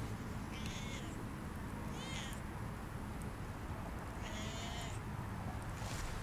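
Siamese cat meowing three times in short, high calls, the third one the longest.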